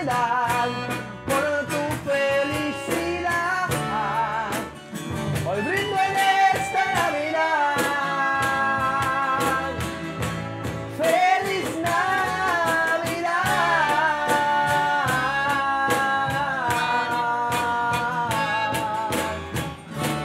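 Acoustic norteño band playing: button accordion over acoustic guitar, electric bass and cajón, with a male voice singing.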